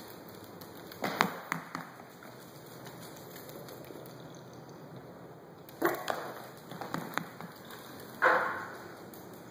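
A Yorkshire terrier scampering on a hardwood floor: sharp clicks and taps in short clusters, about a second in, around six to seven seconds in, and one louder hit near the end.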